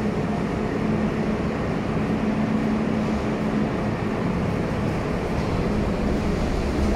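An R32 subway train standing at an underground platform, giving a steady hum with a low tone under it from its idling equipment. Its horn starts to sound right at the very end.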